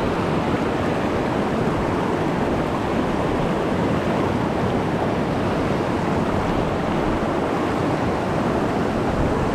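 Rushing water of a fast mountain stream: a steady, even rush.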